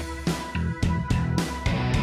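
Background music with guitar and a steady beat, about three to four beats a second.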